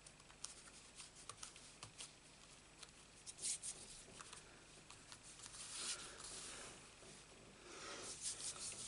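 Faint rustles and scrapes of a paper card being handled and slid across a craft mat, with a few light clicks early on and short rustling bursts about three and a half, six and eight seconds in.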